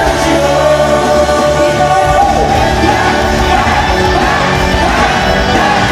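Loud pop music with singing over a full band backing; the bass drops out for about the first two seconds, then comes back in.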